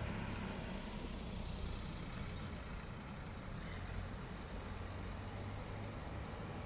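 Low, steady rumble of an approaching electric regional train, growing slightly louder near the end as it comes into view.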